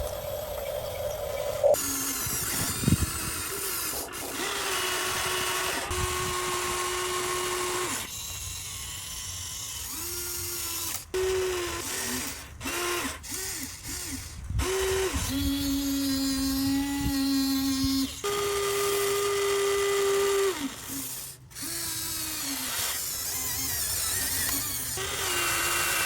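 Small electric motors of a Huina RC excavator whining in short runs, starting and stopping, the pitch shifting from one run to the next.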